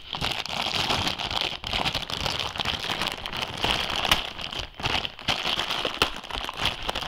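Packaging crinkling and rustling in a dense, irregular run of small crackles as a microphone shock mount is unwrapped.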